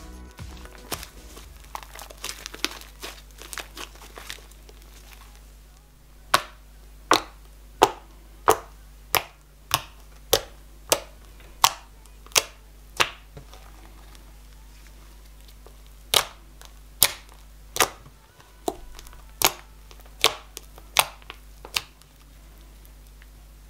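Fluffy slime being stirred with a spoon in a bowl, with soft sticky crackling. It is then pressed and kneaded by hand, and it pops with sharp clicks about one and a half a second in two runs, pausing for a few seconds midway.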